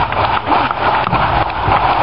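Massed Highland bagpipes of a marching pipe band playing loudly at close range.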